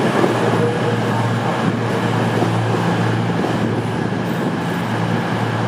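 CrossCountry Class 220/221 Voyager diesel multiple unit moving past along the platform: a steady drone from its underfloor diesel engines with a low hum, over the rumble of its wheels on the rails.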